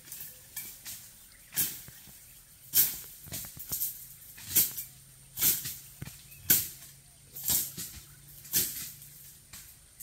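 An insect calls with short rasping, shaker-like bursts about once a second, some louder than others, over a faint steady low hum.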